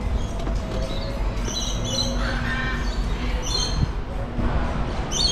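Lorikeets squawking: short, shrill calls about two seconds in, again near three and a half seconds and near the end, over a steady low rumble.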